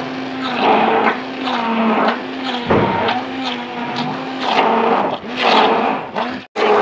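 Electric immersion hand blender with a stainless-steel shaft running in a bowl of boiled bottle gourd, puréeing the soft, wet pulp. Its motor tone wavers up and down under load, with a wet churning that swells and fades about twice a second, and it cuts out briefly near the end.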